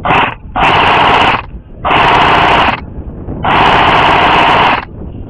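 Airsoft rifle firing on full auto in four bursts: a short one, then three of about a second each, the last the longest.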